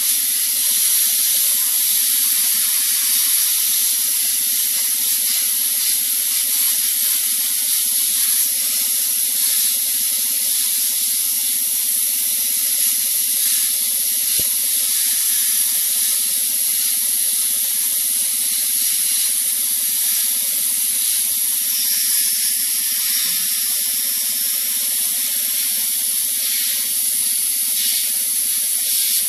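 Sandblasting gun in a blast cabinet blasting grit at a rusty steel bracket: a steady loud hiss of compressed air and abrasive, with a steady low hum underneath.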